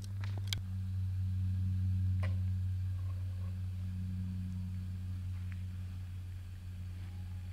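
Steady low hum with a weaker overtone, with a few short clicks in the first second and another a little after two seconds in.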